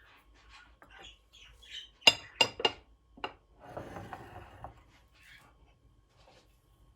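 Dishes clinking: three quick ringing clinks close together, a fourth just after, then a short scraping rattle as they are moved.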